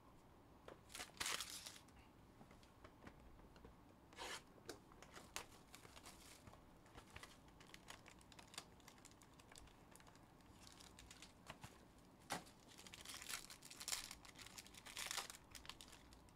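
Plastic wrapping on a trading card box being torn and crinkled in short bursts, about a second in, around four seconds and again for a couple of seconds near the end, with light clicks and rustles of cards and sleeves being handled.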